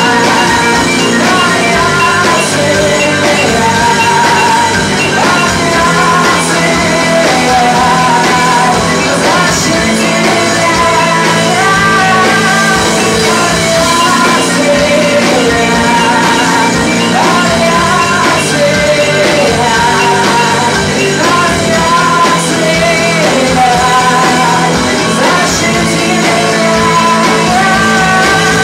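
Live rock band playing: electric guitars, keyboards and drums, with a melody line gliding over the dense band sound and cymbal crashes every few seconds.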